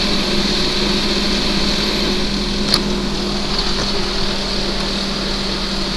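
Steady mechanical drone with a low hum, with one sharp click about halfway through.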